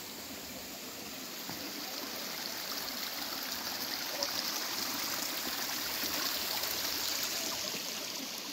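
A small forest stream running and trickling over rocks, growing louder toward the middle and easing off near the end.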